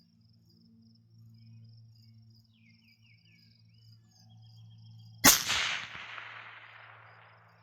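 A single shot from a Barrett MRAD rifle about five seconds in: a sharp, very loud crack followed by a long rolling echo that fades over about two seconds. Before it, faint insect chirping and a low steady hum.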